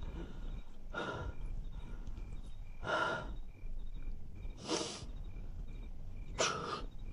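A young man's heavy breathing: four loud, sharp breaths about two seconds apart, over faint high chirps repeating in the background.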